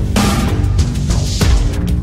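Electronic soundtrack music, loud and driving, with heavy sustained chords. A new chord hits about a second and a half in.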